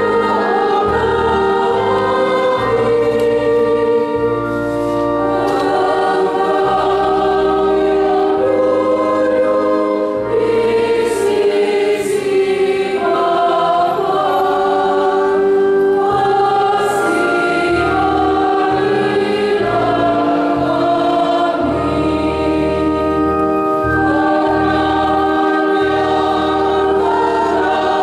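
Church choir singing a hymn in several parts, accompanied by an electronic keyboard holding low bass notes that change every second or two.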